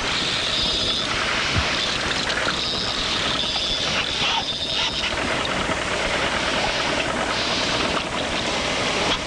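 Fishing boat's engine running steadily with rushing water and wind noise.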